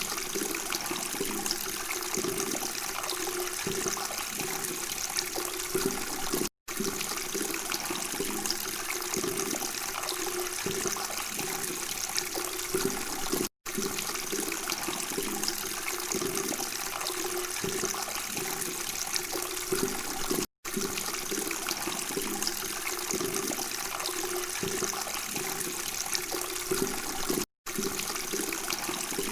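Babbling, flowing water running steadily, broken by a brief silent gap about every seven seconds where a short recording loops.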